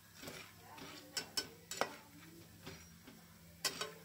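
Irregular sharp ticks and clicks from popcorn kernels heating in hot oil in an aluminium pressure-cooker pan, with a louder metallic knock or two near the end as the lid is brought onto the pan.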